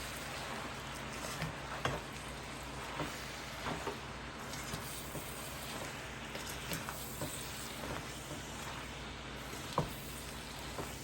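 Beetroot leaves with peppers, onion and garlic sizzling in a pan with butter, with a spoon clicking against the pan now and then as they are stirred; the sharpest click comes near the end.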